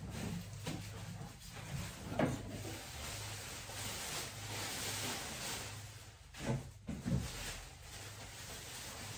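A tablecloth rustling as it is shaken out and spread over a dining table, with a knock about two seconds in and three more close together later.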